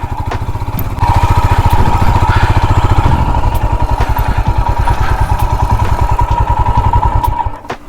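Royal Enfield Himalayan's single-cylinder engine running under throttle with a rapid, even firing beat. It gets louder about a second in and eases off near the end.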